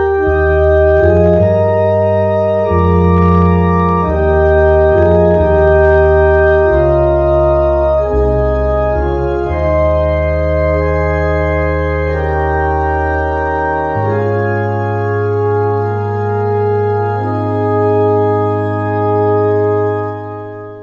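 Two-manual electronic organ playing sustained chords over a held bass line, settling into a long final chord that begins to die away near the end.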